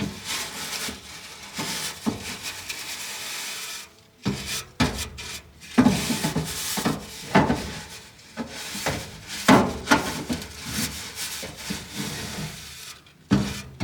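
Irregular scraping and rubbing strokes with a few knocks, from a dryer vent duct being scrubbed out and handled during lint cleaning.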